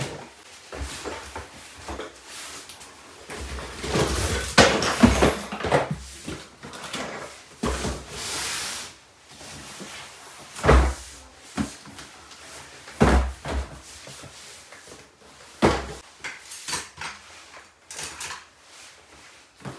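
Cardboard boxes being handled: slid and shuffled with scraping and rustling, then set down on the floor with several dull thumps, the heaviest about eleven, thirteen and sixteen seconds in.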